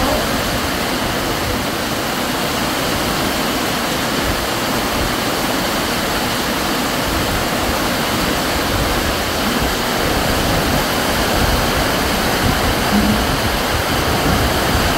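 Heavy rain pouring down, a loud, steady, even rush.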